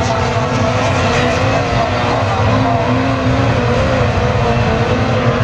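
Classic Mini autograss racing cars running hard around a dirt track, their engine notes rising and falling together.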